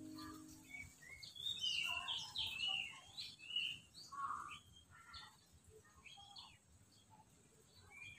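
Small birds chirping in short, quick calls, busiest in the first half and thinning out toward the end.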